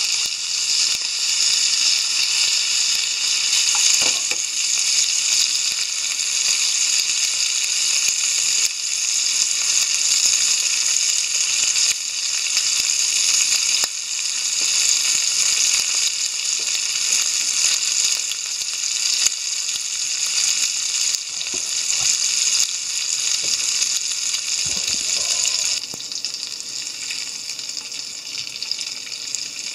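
Shrimps sizzling hard in hot oil in a frying pan, browning to the point of charring, with a few knocks and scrapes of a spatula turning them. The sizzle drops to a quieter level near the end.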